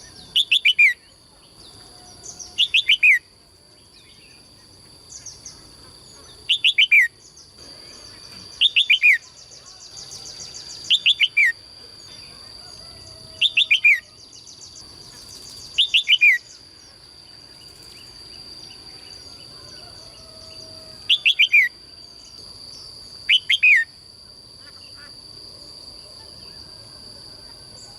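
A songbird singing short, loud phrases, each a quick run of three or four falling whistled notes. The phrases repeat about every two seconds, with a longer pause in the middle.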